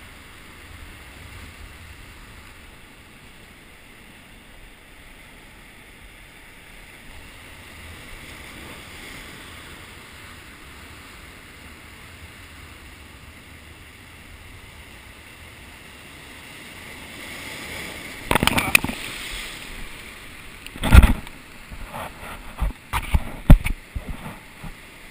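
Sea surf washing over shore rocks in a steady hiss, then several loud crashes of breaking waves and spray in the last third, the loudest a few seconds before the end.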